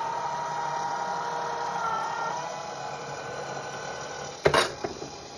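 AccuQuilt Go Big electric fabric cutter's motorized rollers running steadily as they draw a fabric-loaded cutting die through, a steady hum with a thin whine. Near the end come a couple of sharp clunks.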